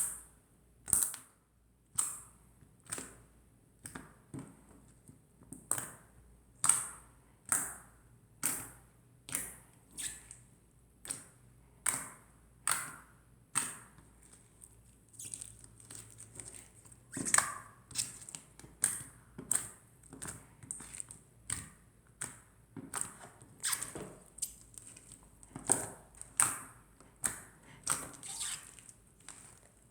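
Clear, chewy slime being squeezed and poked by hand, giving short, sharp wet pops and clicks about once a second, coming a little faster later on.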